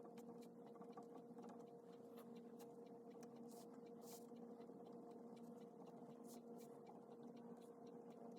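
Faint, irregular scratching of a pen writing on paper, over a steady low electrical hum.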